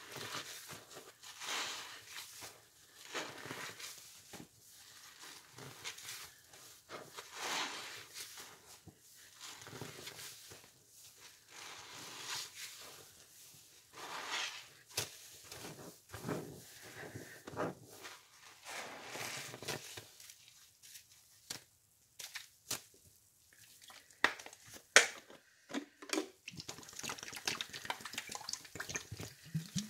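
Wet sponges soaked in pine cleaner suds being squeezed by hand: irregular wet squishes and drips, thinning out in the second half. A sharp click comes late on.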